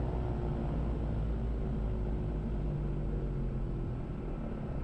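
Diamond DA40's four-cylinder Lycoming piston engine and propeller running steadily in the cabin, its pitch sliding slowly down over the first few seconds as the throttle is brought back to idle after the run-up checks.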